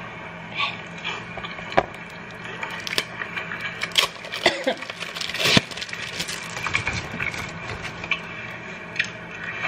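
Scattered light clicks and knocks of small objects being handled, loudest a little past the middle, over a steady low hum.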